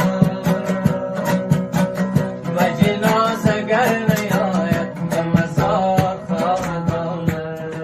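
Afghan mahali folk music led by a dambura, a plucked long-necked lute, played in a quick, even rhythm of plucks.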